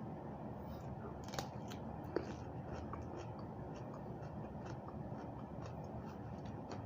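A person chewing raw cucumber with the mouth close to the microphone: faint, scattered crunchy clicks, a couple slightly louder about one and a half and two seconds in, over steady low background noise.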